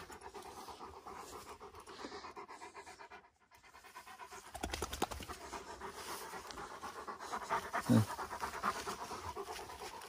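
Turkish shepherd dog panting in a quick, steady rhythm, growing louder about halfway through, with a brief low-pitched sound about eight seconds in.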